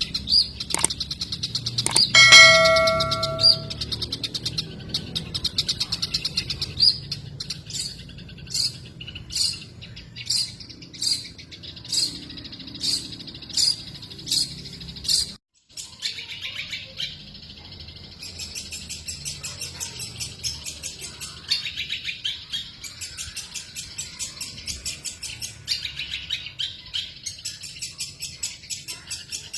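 Long-tailed shrike (cendet) singing loudly in a song full of mimicked phrases: first a run of sharp, evenly spaced high notes about one a second, then, after a brief break about halfway, a fast continuous chatter.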